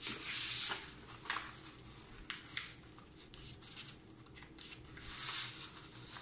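A sheet of paper being folded and creased by hand: irregular rustling and scraping with short crisp clicks, swelling briefly near the start and again about five seconds in.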